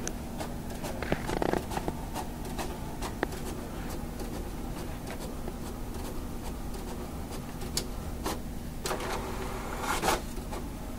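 Sheets of printer paper rustling as a cat paws and stands on them, with scattered soft clicks and a faint steady hum underneath. The rustling is loudest about a second in and again near the end.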